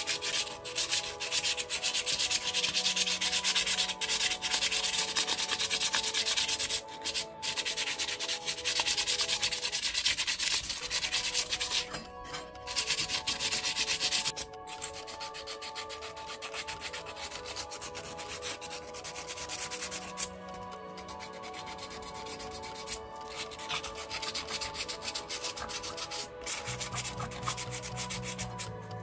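Sandpaper rubbed by hand over an old iron knuckle-duster: a dry, scratchy rasp in runs of strokes broken by short pauses. It is louder for the first half and quieter after about fourteen seconds.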